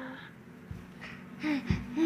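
Baby making short hooting 'oh' sounds, the 'monkey sounds' of a five-month-old. A long held note trails off at the start, then two brief rising-and-falling hoots come near the end, with a couple of dull low thumps.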